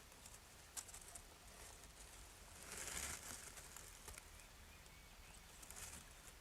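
Faint scattered ticks and patters from an animal at a feeder, with a short rustle about halfway through and a smaller one near the end.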